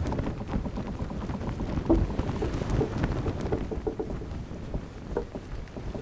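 Steady wind rumbling on the microphone out on open water, with a few light knocks about two seconds in and again near five seconds.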